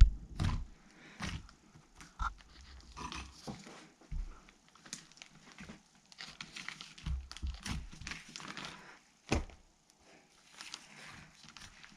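Handmade slime squeezed and stretched by hand, giving irregular popping and crackling clicks with brief pauses between.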